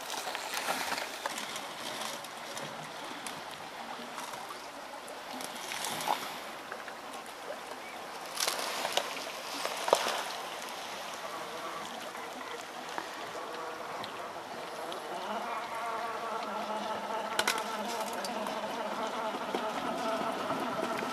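Traxxas TRX-4 Defender RC crawler driving through shallow water: water splashing and trickling around its tyres, with a few sharp knocks. The whine of its electric motor and gears comes up steadier in the last few seconds.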